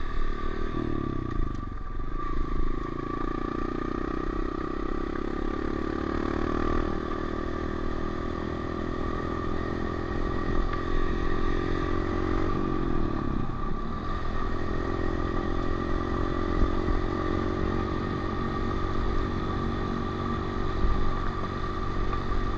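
Honda CRF125F single-cylinder four-stroke dirt bike engine running steadily while riding. The revs dip briefly about two seconds in and again around thirteen seconds, then pick back up.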